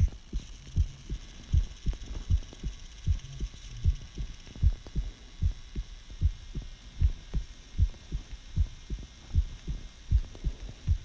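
A person's own heartbeat recorded close up: a steady, regular lub-dub of low thumps at a little more than one beat a second.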